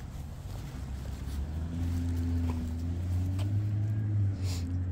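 A motor vehicle's engine hum, low and steady, growing louder as it approaches, with a few faint clicks.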